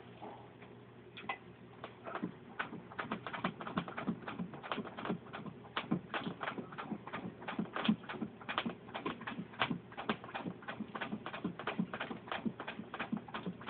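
Antique Singer 66 sewing machine turned by hand, clicking steadily as it stitches through six layers of denim. The clicks come a few a second, starting about a second in.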